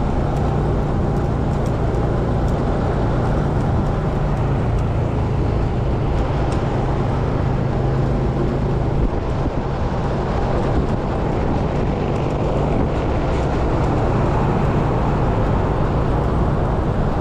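Motor scooter running steadily at road speed in traffic: a steady engine hum under an even rush of wind and road noise.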